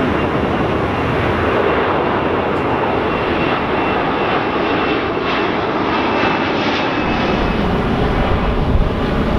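Airbus A330 twin jet engines at climb-out power passing low overhead just after takeoff: a loud, steady engine noise. In the last couple of seconds the higher sound thins as the jet banks away, and low wind rumble on the microphone comes up.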